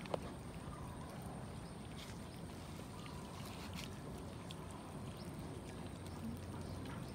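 Several cats eating raw minced chicken: chewing and smacking, with scattered small clicks and one sharper click right at the start, over a steady low background rumble.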